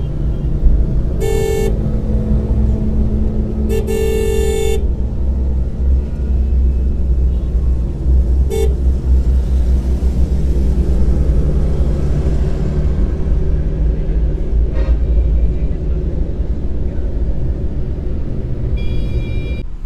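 Steady engine and road rumble inside a moving van's cabin in city traffic, with car horns honking: a short toot about a second and a half in, a longer one at about four seconds, a brief one near nine seconds and another near the end. A short thump just under a second in.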